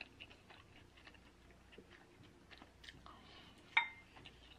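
A person chewing a mouthful of food close to the microphone: faint, irregular wet mouth clicks and smacks, with one sharper click about three-quarters of the way through.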